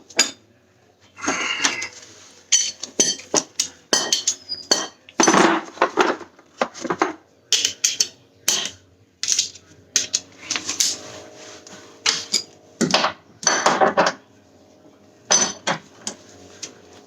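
Irregular metal clanks and clinks of hand tools and steel parts being handled and knocked during rear suspension work, some strikes leaving a short metallic ring.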